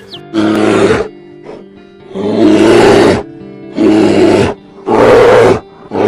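Bear roaring: four loud, rough roars of about a second each, with a fifth starting near the end, over background music.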